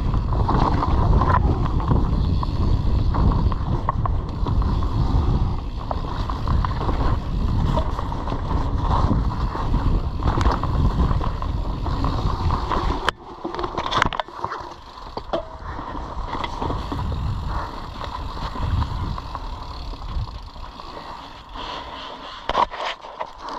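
Mountain bike descending a dirt trail: rushing wind on the microphone with the tyres rolling over dirt and the bike rattling. About halfway through it suddenly gets much quieter, leaving lighter tyre noise over leaves with scattered clicks and rattles.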